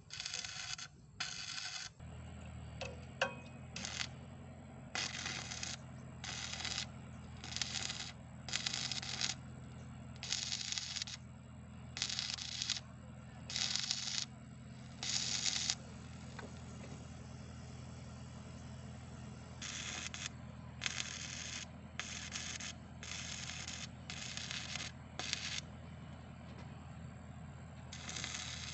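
An engine running steadily with a low hum, with repeated short bursts of crackling hiss over it, roughly one every second or so, that stop for a few seconds about two-thirds of the way through.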